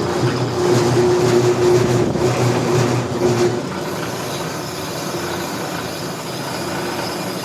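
Brake lathe running, turning a steel C6 automatic-transmission clutch backing plate down in light cuts: a steady mechanical hum with a droning tone. It gets quieter about three and a half seconds in and then runs on evenly.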